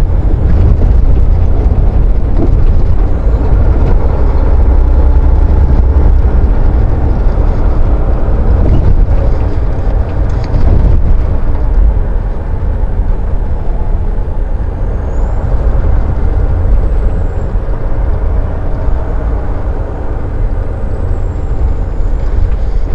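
Semi truck's engine and road noise heard from inside the cab while driving: a steady deep rumble that eases a little about halfway through.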